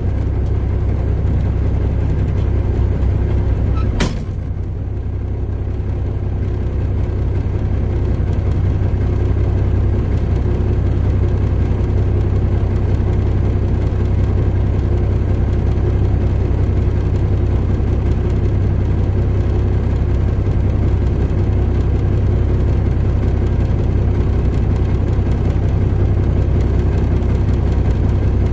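Semi truck's diesel engine idling steadily, heard from inside the cab as a low, even hum. A single sharp thump about four seconds in.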